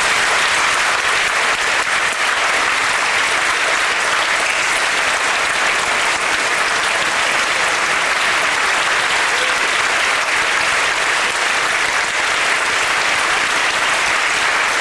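Large audience applauding: a long, steady round of dense clapping.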